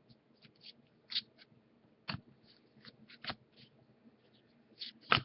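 Trading cards being flipped and handled, a series of irregular light clicks and snaps as each card is slid off the stack, with sharper snaps about two seconds in and near the end.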